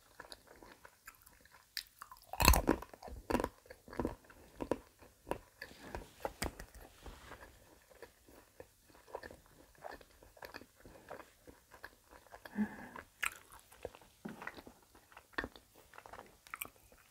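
Close-miked chewing of milk chocolate: a loud bite about two and a half seconds in, then soft crunches and wet mouth clicks.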